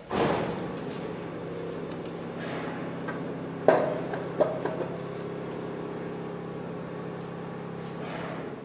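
Steam hissing from Baldwin 2-10-0 Decapod No. 90 while it is being steamed up, over a steady mechanical hum. There is one sharp metallic clank a little under four seconds in and two lighter knocks soon after.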